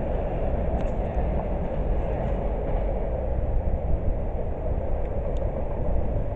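Freight cars of a long manifest train rolling along the track, a steady rumble with a few faint clicks.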